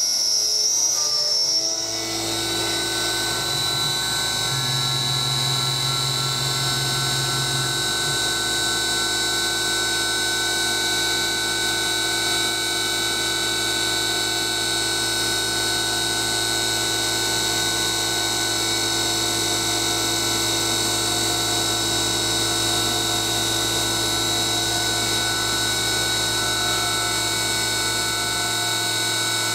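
CNC mill spindle driven by a brushless DC motor, milling 6061 aluminum under flood coolant: a steady whine of spindle and cutter over the hiss of coolant and cutting noise, with a shift in pitch about two seconds in.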